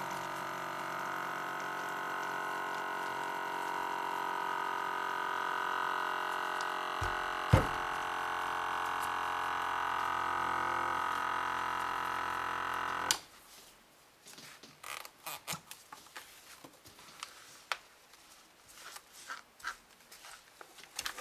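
Hermaseal vacuum sealer's electric pump running steadily, drawing the air out of a plastic food bag through a clear tube, with a brief thump about seven and a half seconds in. The pump cuts off suddenly about 13 seconds in, and the plastic bag then rustles and crinkles softly as it is handled.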